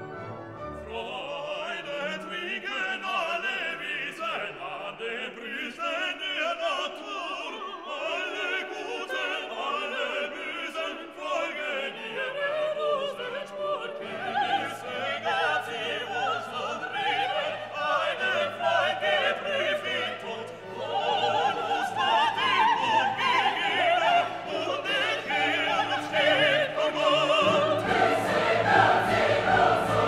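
Background classical music with operatic singing over sustained instrumental notes. A deeper bass line comes in about halfway through, and the music grows fuller near the end.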